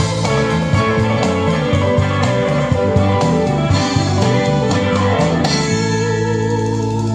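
Instrumental ending of a country song with guitar over a moving bass line, with no vocals; about two-thirds of the way through the band settles onto a held final chord.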